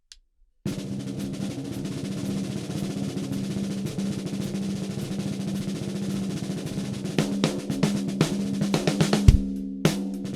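Ludwig Supralite 14"x6.5" beaded steel-shell snare drum played as a sustained roll for about six seconds, ringing with a steady tone. Then come a run of separate accented strokes, and a low bass-drum hit near the end.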